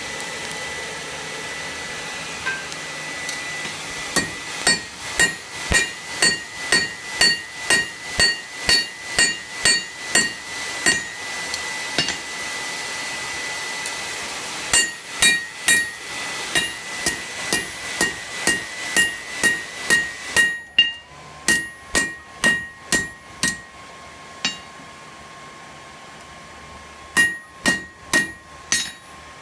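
Hand hammer striking on an anvil in runs of about two blows a second, each blow leaving a ringing metallic note. Under it a steady rush of air from the forge blower, which cuts off about two-thirds of the way through.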